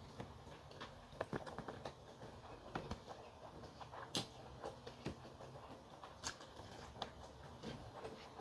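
Close-up eating sounds: a person chewing squid adobo in coconut milk, a scattered run of small wet clicks and smacks, with sharper clicks about four seconds in and again about six seconds in.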